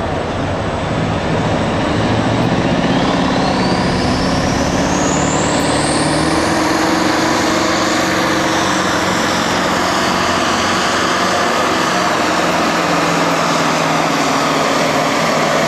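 Big-rig semi truck's diesel engine at full throttle pulling a weight sled, running loud and steady. A high whine climbs in pitch over the first several seconds, then levels off as the engine holds its pitch.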